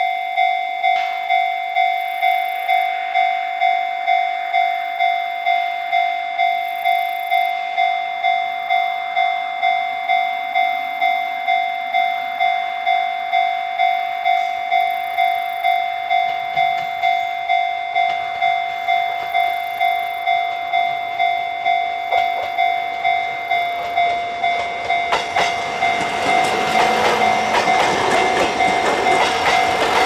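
Japanese level-crossing alarm ringing its electronic bell in a steady rhythm of just under two strokes a second, warning of an approaching train. From about 25 seconds in, the running noise of an approaching JR East GV-E400 diesel-electric railcar rises and covers the bell's rhythm as the train reaches the crossing.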